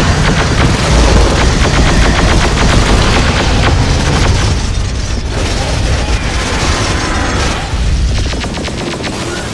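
Battle sound effects: rapid, continuous automatic weapon fire over a heavy low rumble of explosions, dense and loud throughout, easing slightly near the end.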